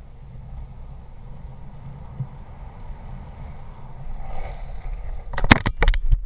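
Longboard wheels rolling on a concrete path, a steady low rumble with wind on the body-worn camera's microphone. From about five and a half seconds in comes a burst of loud knocks and scrapes as the rider loses the board and bails, the board clattering away on the concrete.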